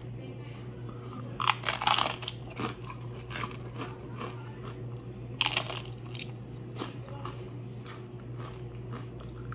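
Crisp crunching as a homemade fried tortilla chip topped with taco meat is bitten and chewed. The loudest crunches come about one and a half to two seconds in and again about five and a half seconds in, with softer chewing between, over a steady low hum.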